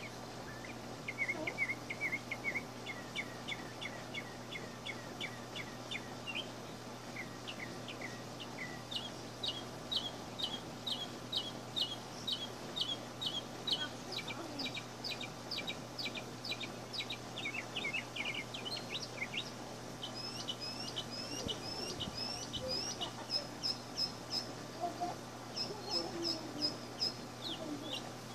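A songbird singing: runs of quick repeated chirps, about three or four a second, each run switching to a new pitch or note type every few seconds.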